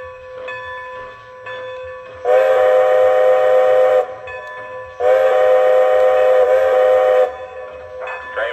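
Lionel Legacy model steam locomotive's onboard sound system blowing a chime steam whistle: two long blasts, the second one longer.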